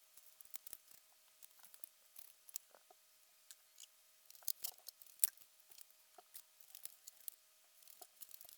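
Scattered light clicks and taps of hand tools and bolts on a Classic Mini A-series engine as its timing cover is unbolted, at irregular intervals, a few louder knocks about halfway, over a faint steady hum.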